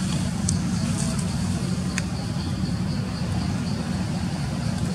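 Steady low background rumble, like distant traffic, with a faint high insect drone over it and a couple of sharp clicks about half a second and two seconds in.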